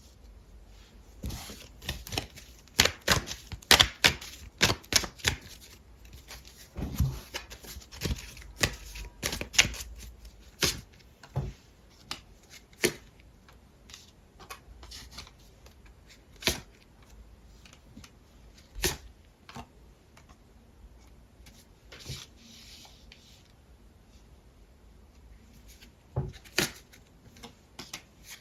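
Tarot cards being handled on a table: a quick run of sharp clicks and snaps for the first ten seconds or so, as of cards being shuffled and laid down, then a few single snaps spaced out.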